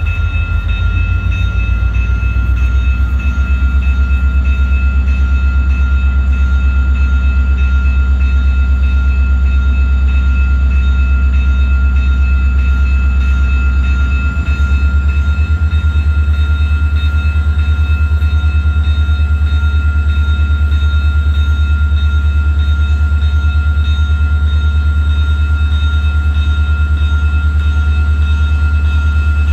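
CN diesel freight locomotive approaching slowly, its engine giving a loud, steady low rumble with a thin high whine held over it. The rumble changes about halfway through.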